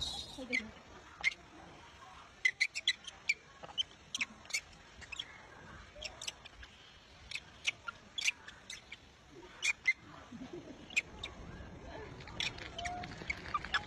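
A scattered, irregular series of short, high-pitched animal chirps and squeaks, several bunched together at times, with a couple of lower short calls among them.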